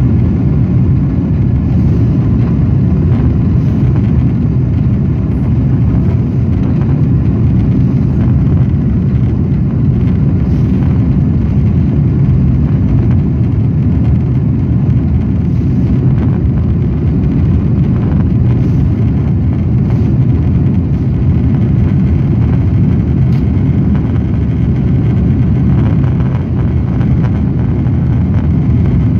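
Cabin noise of a Boeing 777-200 climbing out just after takeoff: the jet engines at climb thrust and the rush of air, a loud, steady, low rumble.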